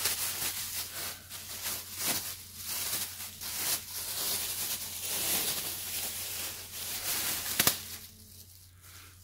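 Thin plastic bags rustling and crinkling as they are handled and pulled open, with a sharp click a little before the end; the rustling dies down in the last second or so.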